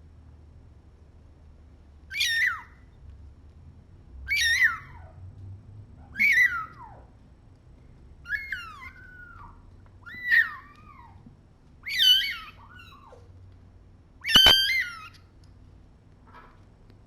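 Young kitten, about three weeks old, crying with seven high-pitched mews about every two seconds, each falling away at the end, and a faint eighth near the end. The kitten is still learning to take a bottle.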